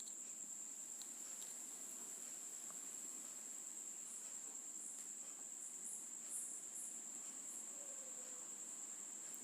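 A faint, steady, high-pitched insect trill runs throughout over a quiet room hiss, with a soft bump about six seconds in.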